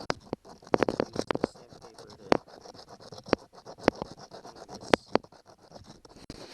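Irregular sharp clicks and scratching, as of things being handled: a quick cluster about a second in, then single clicks every second or so.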